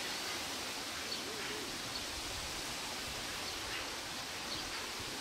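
Open-field ambience: a steady hiss with a few faint, short bird chirps.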